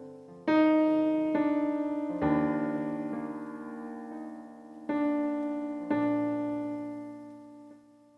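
Keyboard playing slow sustained chords in an electric-piano sound: a new chord struck every second or so, each left ringing and fading, with no singing over it. This is the quiet instrumental outro of the worship song.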